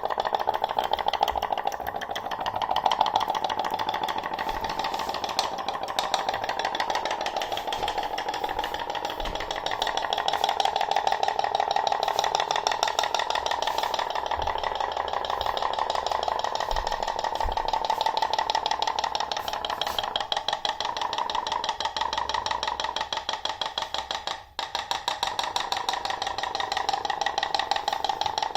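Toy putt-putt (pop-pop) boat's steam-pulse engine running, giving a rapid, steady popping, with a brief break near the end.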